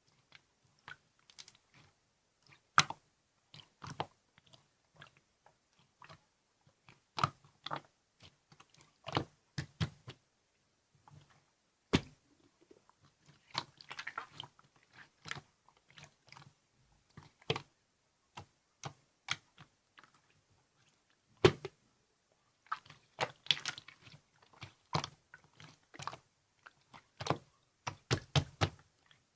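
Irregular sharp clicks and taps, a few at a time with gaps between, in busier clusters about halfway through and near the end.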